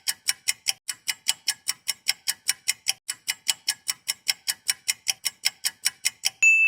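Clock-style ticking sound effect, even and quick at about five ticks a second, ending about six and a half seconds in with a single ding that rings on and slowly fades.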